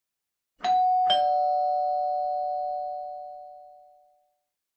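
Two-tone doorbell chime: a higher "ding" then a lower "dong" about half a second later, both ringing on and fading away over about three seconds.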